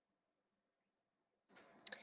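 Near silence: room tone, with a couple of faint clicks near the end.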